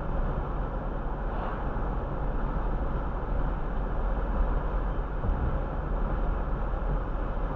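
Steady road and tyre noise with engine hum of a car cruising at about 32 mph, heard from inside the car through a dashcam microphone.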